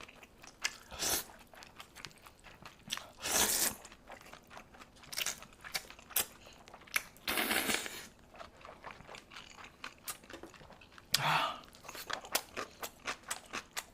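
Close-miked eating: chewing and crunching of food, with scattered small clicks and a few louder bursts, about three and a half, seven and a half and eleven seconds in.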